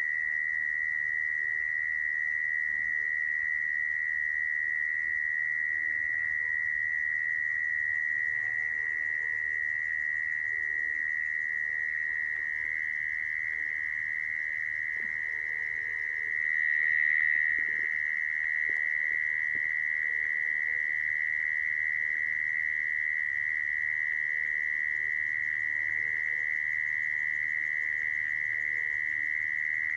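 Mole cricket singing its calling song: one continuous, unbroken high trill, swelling briefly a little past the middle. This is the kind of call used as a lure to trap mole crickets.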